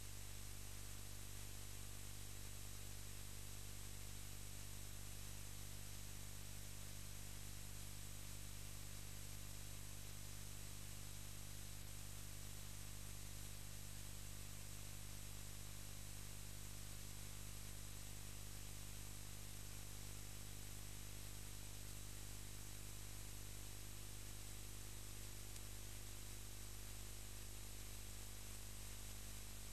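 Faint steady hiss with a low electrical hum and nothing else: the empty soundtrack's noise floor.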